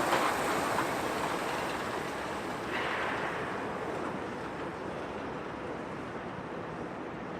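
Road traffic noise from passing vehicles, a steady rush that slowly fades, with a brief swell about three seconds in.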